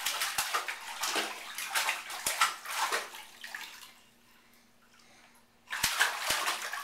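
A baby slapping and splashing the water of a shallow bath with its hands, in quick irregular strokes. The splashing stops for about two seconds past the middle and starts again near the end.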